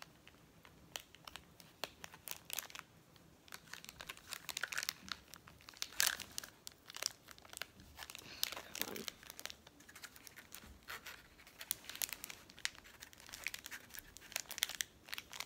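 Thin plastic specimen bag crinkling and crackling in the hands as it is folded over and sealed shut along its adhesive strip, in many irregular crackles.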